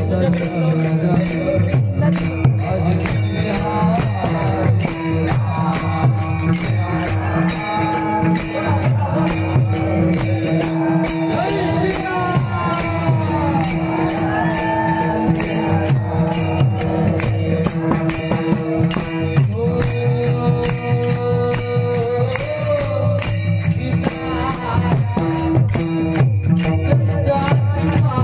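Devotional bhajan music: a singer's voice over a steady held drone and fast, even percussion with jingles.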